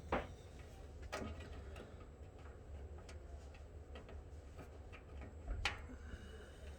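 A few sharp, scattered clicks and taps of small tools and electrical wire being handled during wiring work, about six over several seconds, over a low steady hum.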